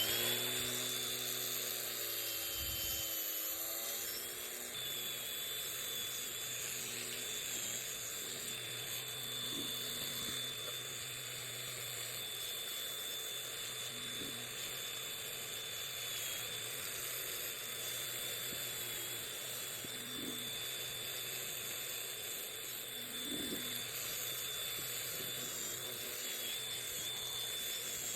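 High-pitched whine of a small power tool running steadily. Its pitch dips briefly every few seconds as it bears on the work.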